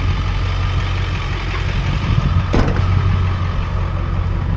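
An engine running steadily at idle with a low, even hum, and a single brief knock about two and a half seconds in.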